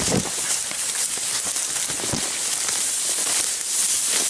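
Dry grass and brush rustling and crackling underfoot as someone walks through it, with a couple of dull footfalls.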